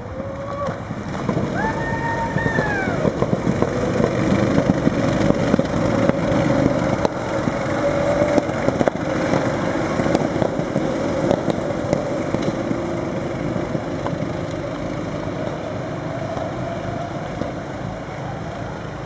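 Several small-engined rental go-karts pulling away and running around the track together, a blend of engine notes that rise and fall as they accelerate and pass. It builds from about a second in, is loudest through the middle, and eases off near the end.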